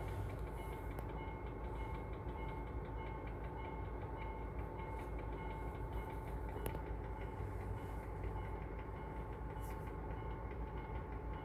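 Stationary train idling: a steady low rumble with a constant high whine.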